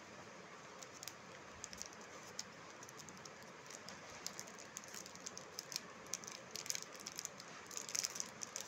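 Faint scattered clicks and crackles of something small being handled, growing busier over the last couple of seconds.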